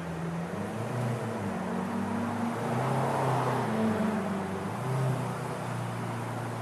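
Lamborghini Aventador's V12 engine running at low revs, its pitch shifting slightly up and down.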